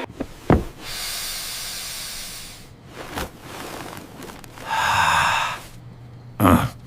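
Hissing noise in two stretches, the second louder, with a few short thuds between them.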